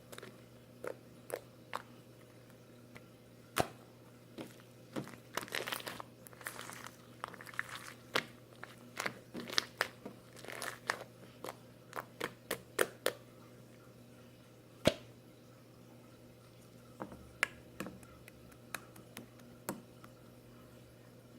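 Scattered sharp clicks and short bursts of crinkly crackling close to the microphone, densest about five to eleven seconds in, then thinning to a few isolated clicks.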